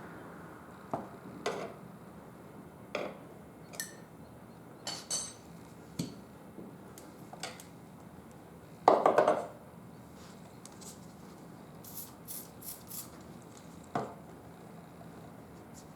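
Metal tyre levers clinking, knocking and scraping against a motorcycle wheel rim as a stiff tyre bead is worked on over the rim, in scattered strokes with a louder clattering rattle about nine seconds in and a quick run of light clicks a few seconds later.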